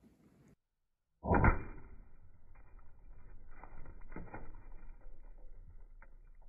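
Slow-motion playback of a .22 rifle bullet striking two water-filled plastic bottles: a deep, muffled thump about a second in, then a low rumbling noise with a few faint knocks.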